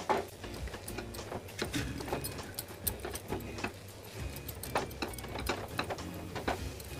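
A silicone spatula stirs and presses a thick coconut barfi dough in a nonstick kadhai, making irregular soft knocks and scrapes against the pan. The dough has cooked down to the stage where it comes away from the sides of the pan.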